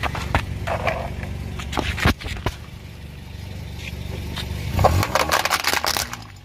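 A car's engine running low and steady, with a few light plastic clicks and knocks, then the car's tyre rolls onto a plastic toy fire truck about five seconds in, and the toy cracks and crunches as it is crushed.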